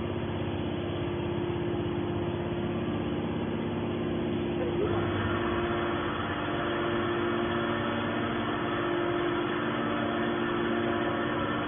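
Hydraulic metal baler's electric motor and hydraulic pump running steadily with a constant hum. About five seconds in the tone shifts, with extra higher tones joining.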